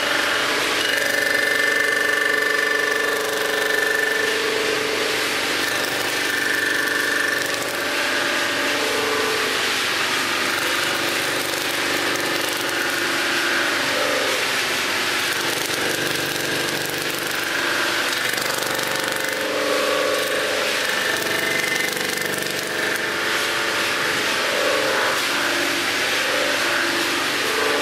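Sunnen HBS-1300 resurfacing machine running as it cuts the deck of a Volvo 240 cylinder head flat, the table carrying the head back and forth under the cutter. A steady mechanical noise, with ringing tones that shift and come and go over it.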